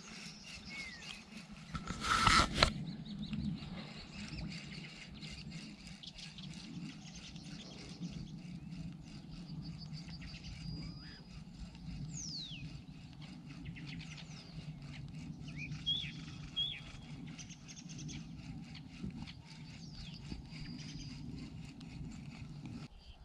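Spinning reel being cranked on the retrieve, a steady low whirr with fine ticking, while birds chirp now and then, including a falling call and two short chirps later on. A short loud burst of noise comes about two seconds in.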